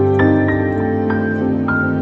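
Calm, slow background music: held low notes with four higher notes struck over them one after another.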